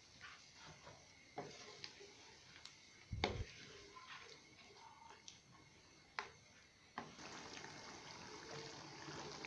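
Faint stirring of chicken in a wet yogurt mixture with a wooden spatula in a nonstick wok: soft scattered scrapes and clicks, with one dull knock about three seconds in. A faint steady hiss comes in near the end.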